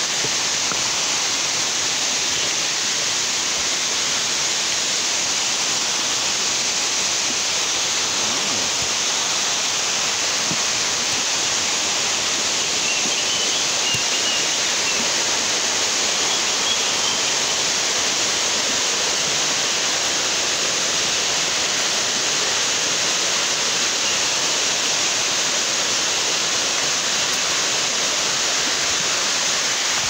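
Steady rush of falling water from a waterfall, even and unbroken.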